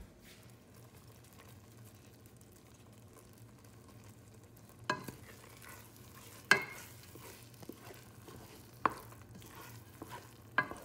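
Wooden spoon stirring mushroom risotto in a pot over a faint sizzle. In the second half there are four sharp knocks of the spoon against the pot.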